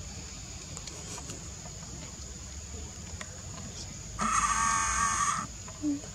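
A baby macaque gives one loud, high squeal lasting a bit over a second, about four seconds in, as a juvenile grabs it by the leg. A steady high insect drone runs underneath.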